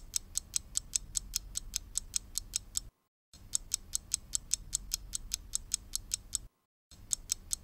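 Ticking-clock sound effect marking a quiz's answer countdown: fast, even ticks, about five or six a second, that break off for a moment twice as the loop restarts.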